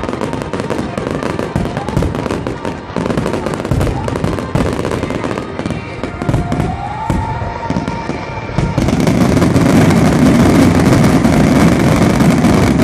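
Fireworks display: a quick run of shell bursts and crackling. About two-thirds of the way in, it jumps to a louder, dense barrage of bangs and crackle.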